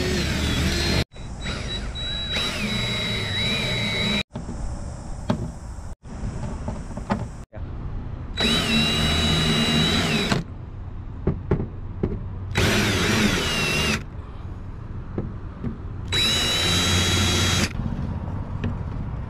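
Power drill boring holes into a boat's white panel in about five short runs, each a high motor whine whose pitch sags and recovers as the bit bites.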